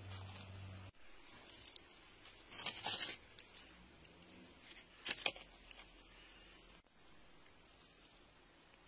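Faint scratching and crunching of gritty soil and stone as fingers dig and pry a rough crystal loose, in short scrapes, with a few quick high squeaks after the middle.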